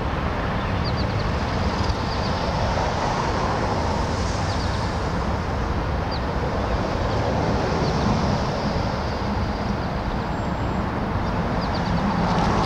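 Steady outdoor background noise, a low rumble with a hiss over it, and a few faint, short high chirps.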